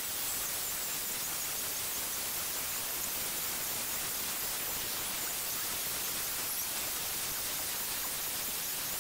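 Handheld electric router running and cutting steadily as it is pushed across a live-edge walnut slab on a flattening sled, a continuous high hiss of the bit milling the surface.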